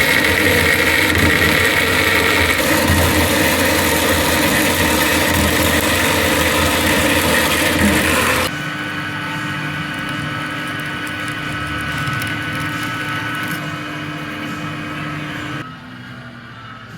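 Steady mechanical running noise with several constant tones. It drops abruptly to a quieter steady machine sound about eight and a half seconds in, and drops again near the end.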